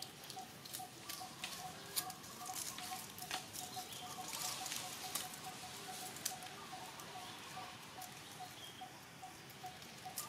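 Macaques moving about on leaf-strewn ground: scattered light clicks and rustles. A faint high note repeats evenly, about three times a second, behind them.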